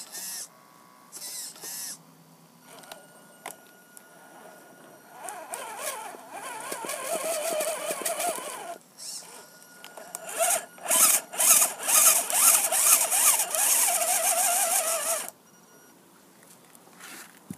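Electric drive motor and geared drivetrain of an RC rock-crawler truck whining and buzzing in bursts under throttle. There are two short blips, then two longer runs of several seconds each, the pitch wavering as the throttle changes.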